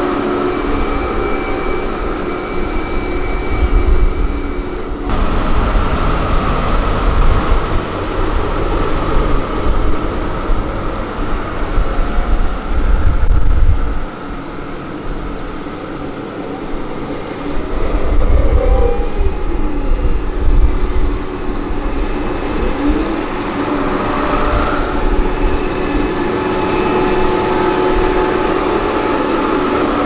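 Diesel engines of road rollers running as a pneumatic-tyre roller and a steel-drum roller work over fresh asphalt, with a low rumble. The sound changes abruptly twice, at about five and fourteen seconds in, and an engine's pitch slides down and back up a little past the middle.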